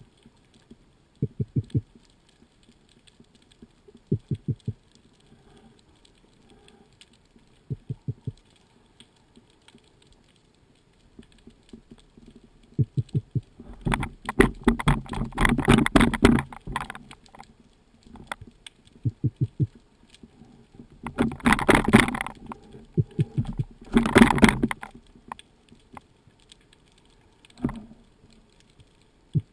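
Underwater sound picked up through a camera housing on a speargun: short bursts of rapid low clicks every few seconds, and from about halfway on several louder rushes of water noise, each lasting a second or more.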